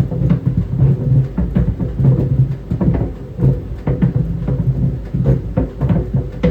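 Tennis balls tumbling in a running clothes dryer, thudding irregularly against the drum several times a second over the steady hum of the dryer.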